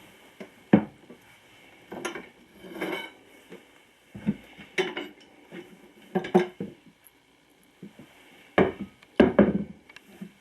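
Steel parts of a manual tire changer clanking and knocking as it is worked on a garden tractor tire: about eight separate metallic clanks at uneven intervals, some with a short ring.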